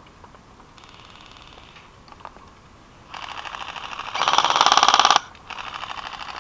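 Airsoft rifles firing fully automatic bursts, each a rapid run of clicks. A faint distant burst comes about a second in. A closer burst builds from about three seconds, is loudest between four and five seconds, stops abruptly, and a further burst starts shortly after.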